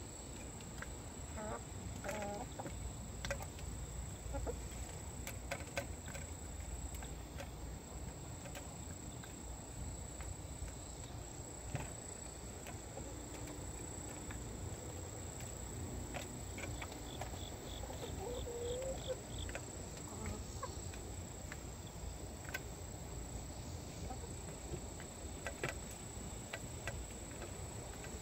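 Hens clucking a few times while pecking at a hanging dish of food, with scattered sharp pecking clicks. Insects trill steadily in the background.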